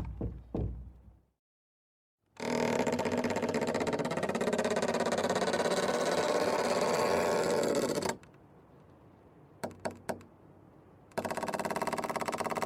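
Creaking hinges of an exterior door, a long steady grinding creak of about six seconds. A few quick clicks follow, then another creak starts near the end.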